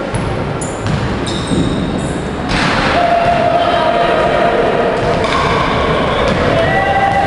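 Live basketball game sound: a basketball bouncing on the court, then a louder wash of players' shouting and cheering from about two and a half seconds in.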